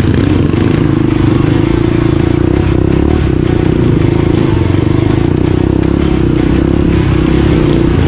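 Dirt bike engine running steadily at low, even throttle while the bike rides through shallow river water.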